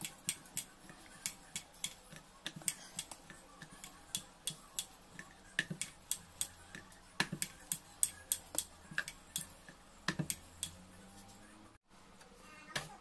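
Wooden rolling pin clicking and knocking against a round rolling board as a stuffed paratha is rolled out: irregular sharp clicks, a few a second. It stops just before the end.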